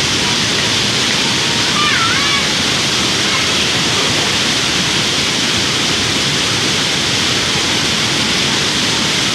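Waterfall rushing: loud, steady water noise with no break. A brief faint high call sounds about two seconds in.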